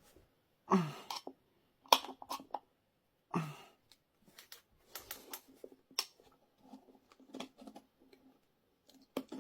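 Irregular clicks, taps and scrapes of hands and tools working at a scooter tyre and its rim while trying to lever the tyre off. The loudest is a sharp click about two seconds in.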